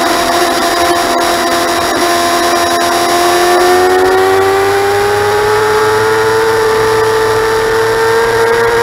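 Motorcycle engine running at high revs, a steady whine that rises slowly in pitch about halfway through as the bike accelerates, over a constant rush of wind noise.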